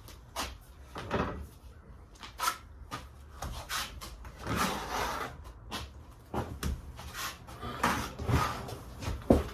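Drywall knife scraping and knocking as patching compound is worked. The strokes come irregularly, about a dozen short scrapes and taps, with a sharper knock near the end.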